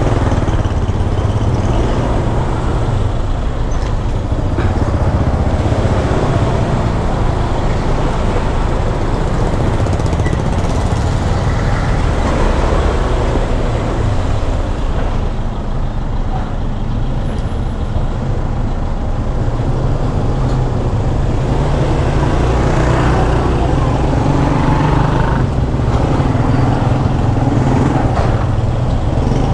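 Riding noise on a Honda Click 125 scooter in traffic: a steady low rumble of wind and engine on the microphone, with other road vehicles around.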